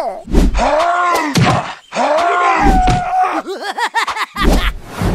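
A voice making wordless grunts and groans, several in a row, the pitch arcing up and down, with a quick string of short ones near the end. Dull low thuds sound under them about half a second, one and a half and two and a half seconds in.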